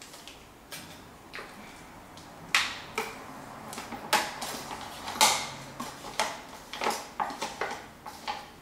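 A spoon scraping low-fat quark out of a carton into a plastic mixing bowl, with irregular clicks and knocks as it hits the carton and the bowl's rim.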